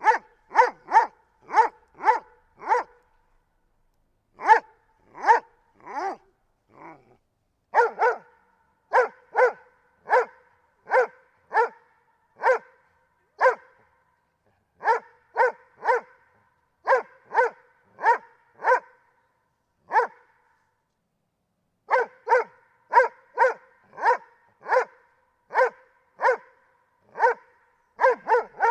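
A dog barking repeatedly in short, sharp barks, in runs of about two a second with brief pauses between runs, and a couple of lower, drawn-out sounds about six seconds in.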